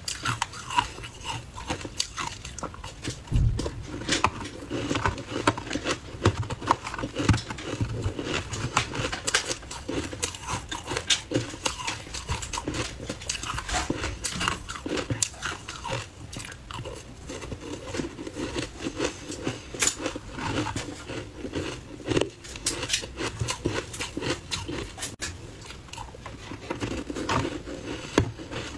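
Close-up crunching and chewing of frozen ice balls dusted with matcha powder, a dense run of crackling bites throughout.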